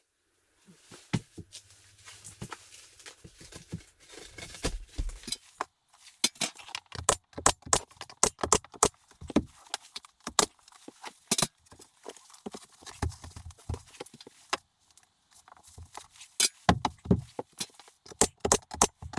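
Wooden panelling boards being handled and fitted: a run of irregular knocks, clacks and clicks of wood on wood, some with a dull thump.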